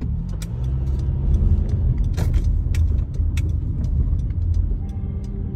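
Car driving in town, heard from inside the cabin: a steady low rumble of road and engine that swells in the first second, with scattered light clicks. Near the end a steady ringing tone comes in, a church bell.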